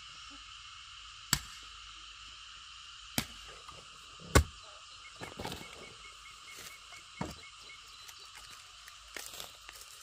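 A steady chorus of frogs and insects, broken by three sharp knocks, the third the loudest, and some softer rustling.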